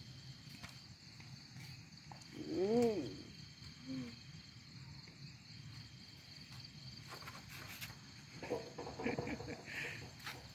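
Night insects trilling steadily. About three seconds in comes one short call that rises and falls, the loudest sound here, and a fainter one follows a second later.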